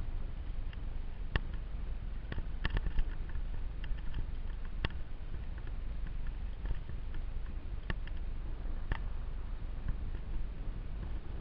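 Steady low rumble of a small camera's microphone being carried along a rocky forest trail, with scattered, irregular clicks and knocks from stones and twigs on the trail surface.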